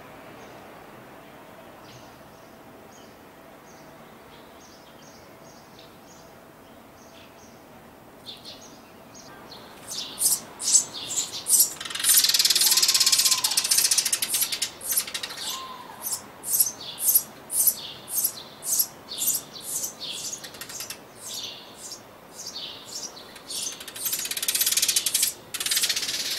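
Eurasian tree sparrow nestlings begging as a parent feeds them at the nest box: faint scattered high chirps at first, then from about ten seconds in loud, rapid, shrill chirps about two a second, swelling into a dense continuous chatter twice.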